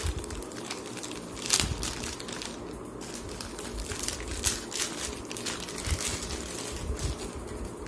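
Thin clear plastic bag crinkling and rustling in irregular crackles as hands work a compact camera out of it, with one louder rustle about one and a half seconds in.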